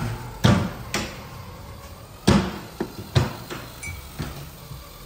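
An irregular series of sharp knocks, about seven in four seconds, with the loudest ones near the start and in the middle, like hard parts striking one another.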